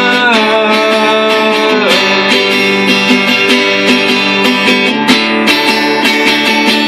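Instrumental break of a country song: strummed acoustic guitar under a lead melody whose held notes slide down in pitch in the first two seconds, with no singing.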